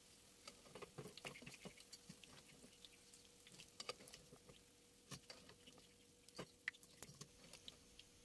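Faint, sparse crackling and ticking of pastries frying in hot oil in a pan, mixed with light clicks of a metal fork and slotted skimmer as the pastries are lifted out.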